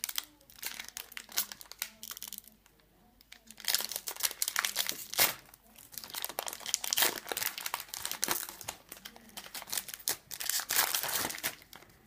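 Foil wrapper of a Pokémon trading card booster pack crinkling and tearing as it is opened by hand, in bursts of rustling with a quieter pause about two to four seconds in.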